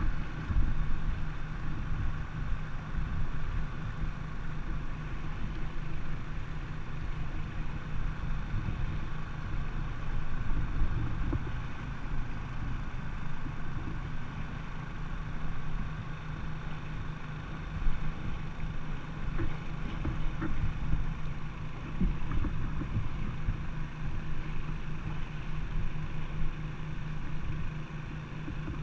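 A small engine running steadily, a low even hum typical of a gold suction dredge's motor, under the rush and splash of shallow river water around an inflatable boat being waded and towed through the current.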